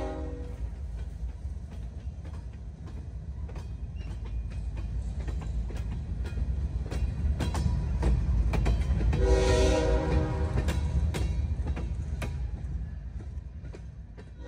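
Freight train passing, with a steady low rumble and wheels clicking over rail joints. A locomotive horn dies away just at the start, and another short horn blast sounds about nine seconds in, as the rumble is at its loudest. The rumble fades near the end.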